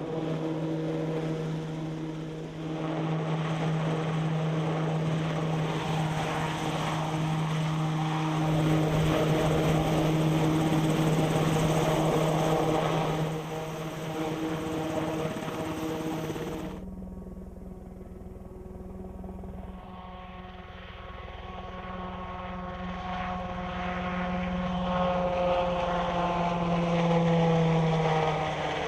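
Piasecki X-49A compound helicopter in flight: a steady drone of rotor and engines with a strong steady tone. About two-thirds through the sound changes abruptly, going duller, then builds again as its tones slowly fall in pitch near the end.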